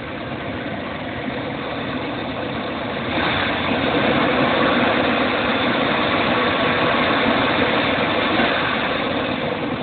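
Chevrolet Astro van's 4.3-litre V6 idling steadily with no misses, running right again after a faulty distributor cap was replaced. The sound gets louder about three seconds in.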